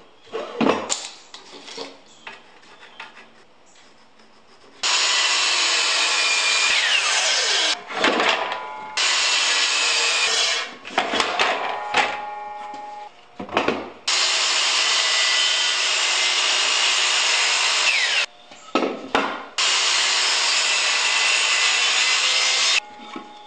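DeWalt sliding miter saw crosscutting walnut boards: the motor and blade run four times, each cut a steady burst a few seconds long, with knocks of the boards being handled and positioned between cuts.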